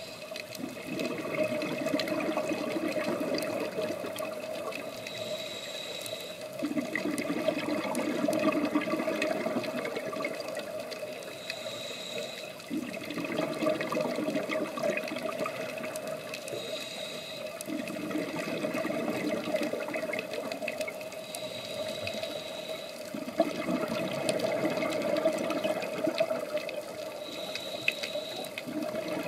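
Scuba diver breathing through a regulator underwater: a short high hiss on each inhale, then a rushing gurgle of exhaled bubbles, repeating about every five to six seconds over a steady hum.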